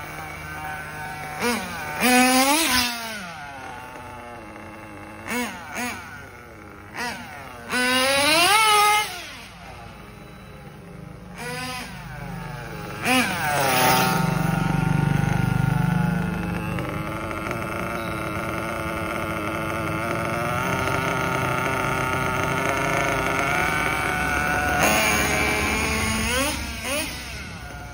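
Kyosho KE21 nitro glow engine in a 1:8 RC buggy being driven on tarmac: it revs up and drops back in short bursts, passes close by about 14 seconds in, then holds a fairly steady high engine note for about ten seconds before revving in bursts again. The engine is being tried out on the road after its carburettor setting.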